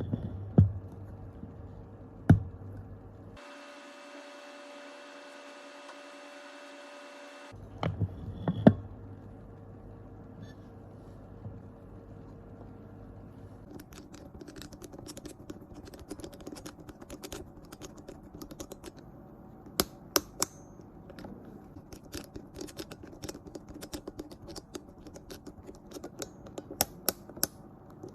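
Light, irregular tapping and clicking of small hard objects on a phone and workbench during hand repair work, several clicks a second through the second half, with a few louder knocks in the first nine seconds.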